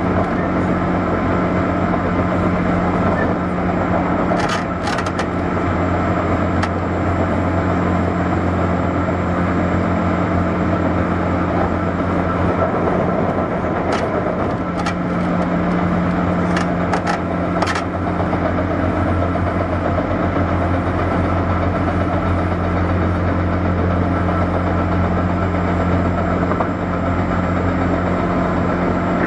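Interior running sound of a JR 201 series electric train, heard inside a motor car: a steady hum with running noise and a few brief sharp clicks, some about four to five seconds in and more after about fourteen seconds.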